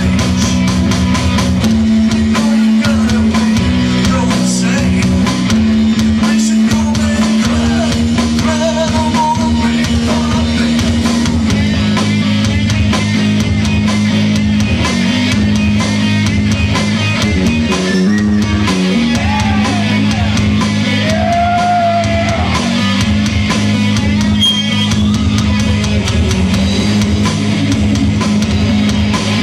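Live rock band playing at full volume: electric guitar and drum kit over a steady low bass line.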